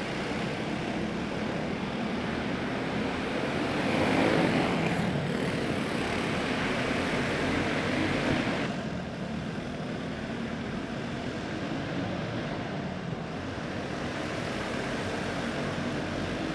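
A pack of quarter midget race cars with small single-cylinder clone engines running on a dirt oval, buzzing steadily. The sound swells as the pack passes close, about four seconds in, and falls back a few seconds later.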